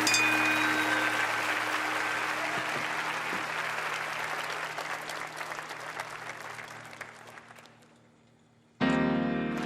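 Studio audience applauding over steady background music, the whole fading out gradually over several seconds. Near the end a new piece of music starts suddenly.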